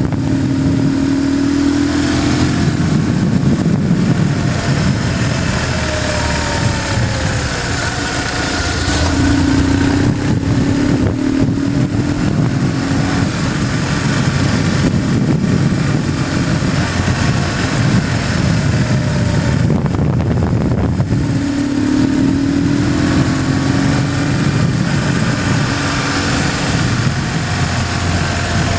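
BMW GS motorcycle engine running under way, its pitch rising and falling several times with the throttle, over a steady rush of wind and road noise.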